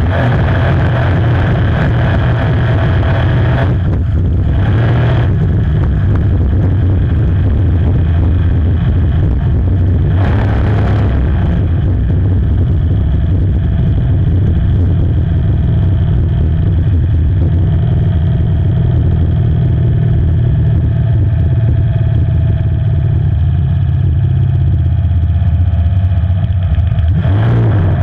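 A 5-litre inboard racing hydroplane's V8 engine runs steadily, heard from on board. Short hisses of water and air break in briefly about 4 and 10 seconds in and again near the end.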